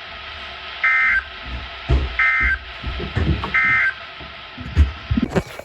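EAS end-of-message signal from a NOAA Weather Radio receiver: three short identical bursts of the SAME two-tone digital data screech, about 1.3 seconds apart, over steady radio hiss. A few low thumps fall between the bursts.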